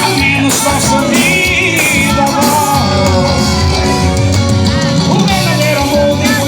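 Loud band music with a steady beat: an instrumental passage between sung verses of a romantic Brazilian song, with a wavering lead melody line.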